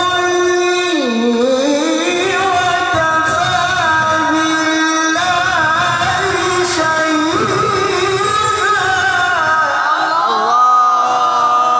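A male qari's voice reciting the Quran in melodic tilawah style: long held notes with wavering ornaments and slow glides up and down in pitch.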